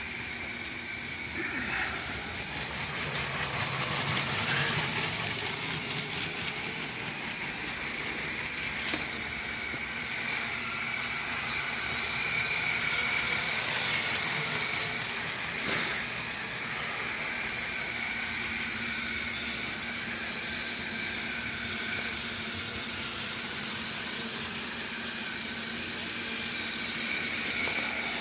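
Electric motors of running Lego trains whirring steadily as their wheels roll along plastic track. There is a louder stretch a few seconds in and two sharp clicks, one about a third of the way through and one a little past the middle.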